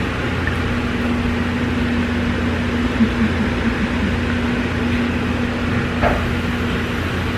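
A steady low machine hum with a steady higher tone that stops near the end, and a couple of faint clicks.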